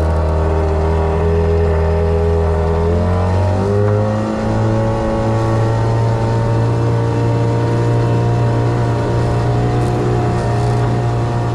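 Boat outboard motor running under way, its engine speed stepping up about four seconds in and then holding steady.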